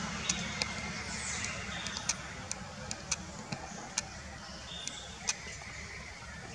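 Outdoor ambience: a steady hiss broken by about a dozen sharp, irregular clicks and a few short high chirps.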